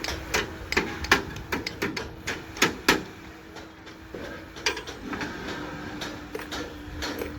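Irregular sharp knocks and clicks, thick for the first three seconds and sparser after, over a faint steady hum.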